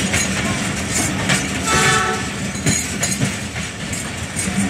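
Train running past, a steady rumble of wheels on the track with clattering knocks, and a short held tone about two seconds in.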